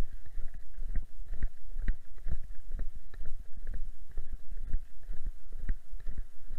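Walking footsteps with a body-worn camera jostling: uneven thumps and knocks about two a second over a low rumble.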